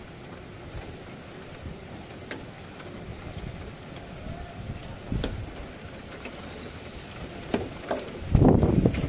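Strong storm wind buffeting the microphone in low rumbling gusts over a steady outdoor hiss, with the loudest gusts near the end.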